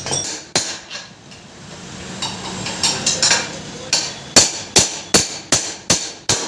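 Metal-on-metal hammer blows on a motorcycle's steering-head bearing cup (cone set) in the frame head tube, the work of swapping out a rusted, worn cone set. A few scattered strikes come first, then a steady run of about seven blows, roughly two and a half a second, near the end.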